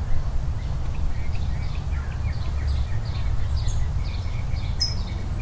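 Several small birds chirping in short, scattered calls over a steady low rumble of outdoor background noise.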